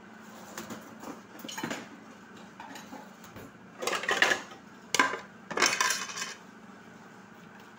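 Kitchen dishes and utensils clinking and clattering as they are handled, in a few short bursts; the loudest come about four to six seconds in, with one sharp knock near the five-second mark.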